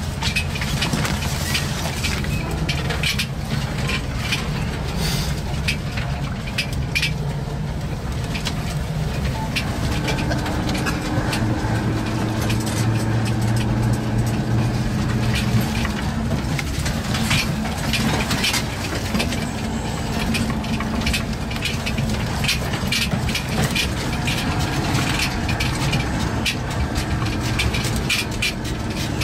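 Military vehicle's engine running under way, heard from inside the troop compartment, its note shifting a few times as it changes speed. Constant rattling and knocking of the vehicle body and gear over the rough road.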